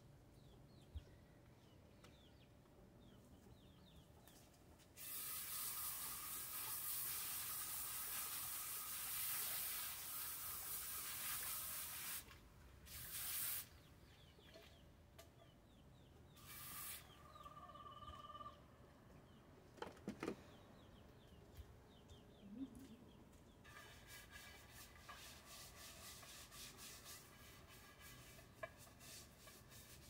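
Garden hose running water in spurts: a long hissing spray of about seven seconds starting around five seconds in, two short bursts in the middle, and a fainter flow over the last several seconds. Faint bird chirps in the first few seconds.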